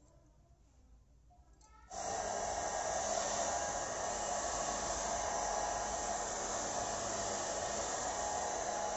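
Handheld hair dryer switched on about two seconds in, then running steadily as it blow-dries wet hair.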